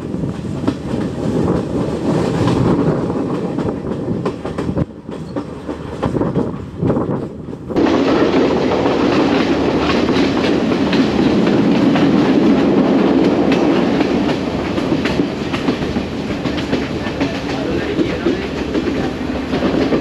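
Passenger train running along the track, its wheels clattering over the rails, heard from the open side of a carriage. It grows louder and fuller about eight seconds in.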